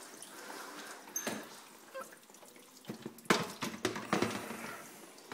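Water dripping and trickling inside an opened dishwasher, wet from a part-run cycle, as a metal mesh grease filter is handled and lifted out. A few sharp knocks of metal against the racks and tub, the loudest about three seconds in.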